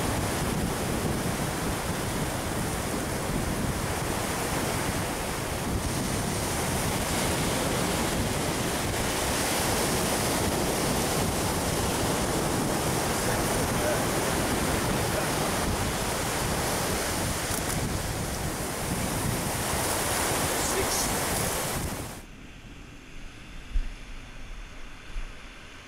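Surf breaking and washing up a beach, with wind buffeting the microphone. About 22 seconds in the sound drops suddenly to a faint hiss, with a couple of short knocks near the end.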